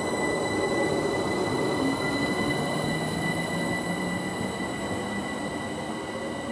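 London Overground Class 378 Capitalstar electric train pulling out and moving away, its wheels rumbling on the rails under a steady high-pitched whine; the sound slowly fades toward the end.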